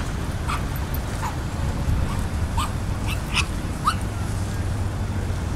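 Short yelping animal calls, about six in the first four seconds, each rising in pitch, over a steady low rumble.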